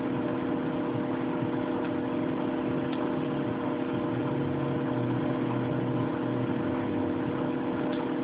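A steady hum with several held tones over a constant hiss.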